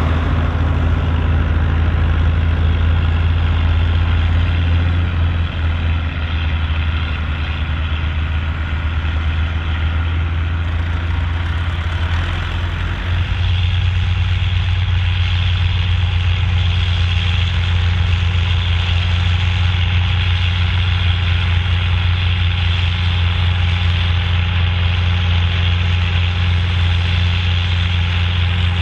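Volvo BM 810 Turbo tractor's turbo diesel engine running steadily, pulling a six-furrow plough. About halfway through, the engine note shifts and grows a little louder.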